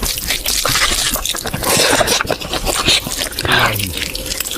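Mukbang eating sounds: wet chewing and smacking of curry and eggs, with many quick small clicks.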